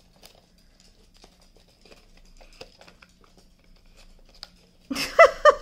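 Light rustling of paper and small plastic clicks as a diamond-painted paper cover is pressed onto a plastic LED lamp base and the bulbs are worked through its holes. Near the end, a woman's voice cuts in loudly.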